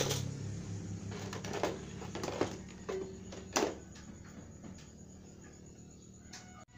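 A handful of light knocks and clatters from a plastic ceiling exhaust fan housing being handled, about five in the first four seconds, two with a short ringing note.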